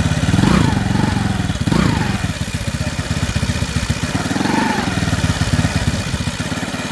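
EOS 240 cc single-cylinder four-stroke paramotor engine running steadily at low throttle, its firing beat even, with a couple of brief swells in the first two seconds and again a little past the middle.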